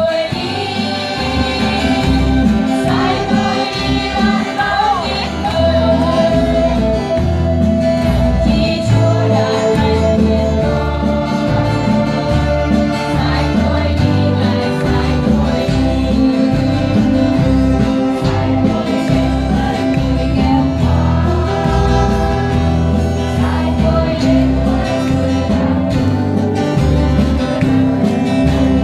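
Children's choir singing a Vietnamese hymn with instrumental accompaniment.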